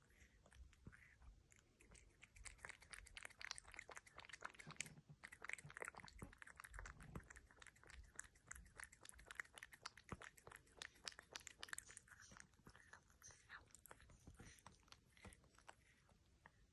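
Cat eating soft food from a saucer: faint, quick wet mouth clicks, several a second, that thin out near the end.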